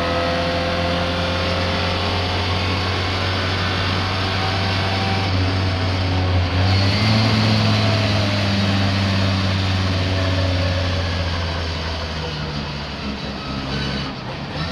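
Racing car engine running at speed, a steady drone that lifts in pitch about six seconds in and eases off slightly near the end; the engine is misfiring.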